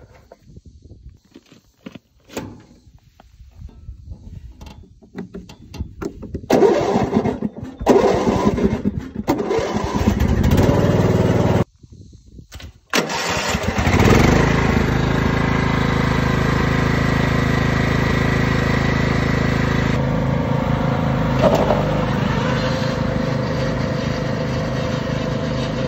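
Riding lawn mower engines being cranked and started, one turned over with a screwdriver in the ignition switch, catching with rough, uneven running, then a second one starting with a brief rev. The engines then run steadily as the mowers drive off.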